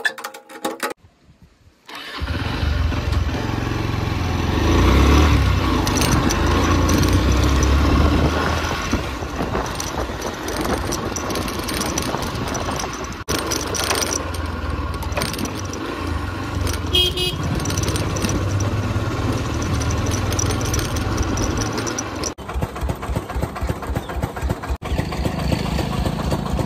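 Motorcycle engine running while riding, with wind noise on a helmet-mounted phone's microphone. A few short metal clicks in the first second or so come from a door bolt being worked.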